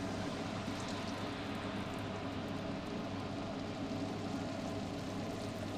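Malpua batter deep-frying in hot oil: a steady sizzle, with a low hum underneath.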